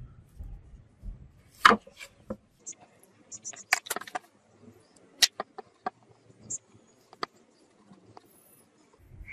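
Wooden sword handle handled on a wooden tabletop: scattered sharp wooden knocks and clicks, the loudest about a second and a half in and a quick cluster about four seconds in.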